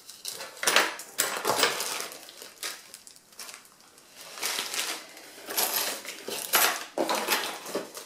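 Hands rummaging through a cluttered kitchen drawer: small hard items clink and rattle against each other in irregular bursts, with plastic bags crinkling.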